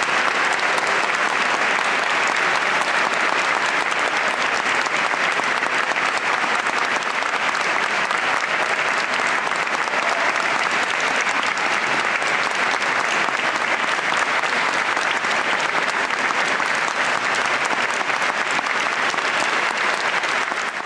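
Audience applauding steadily; the clapping fades out at the very end.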